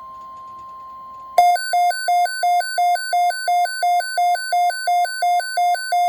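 Emergency alert broadcast tone: a steady electronic tone, then a loud alarm starting about a second and a half in, pulsing about three times a second and switching between a low and a high pitch over the steady tone. It is the attention signal that opens a severe thunderstorm watch alert.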